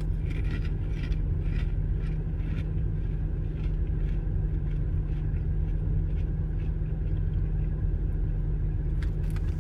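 Potato chips being crunched and chewed in irregular short crackles, over a steady low rumble.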